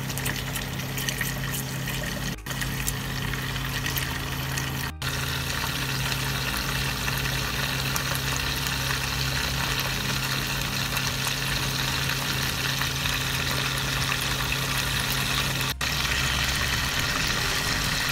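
Chicken gizzards frying in hot oil in a pan: a steady sizzle with fine crackling, over a low steady hum.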